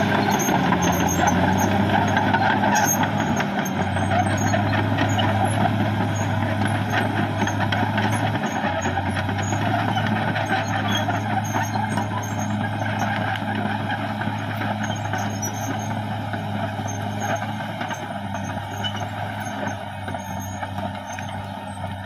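Caterpillar D6R XL crawler bulldozer's diesel engine running steadily under load as it pushes earth with its blade, slowly growing quieter toward the end.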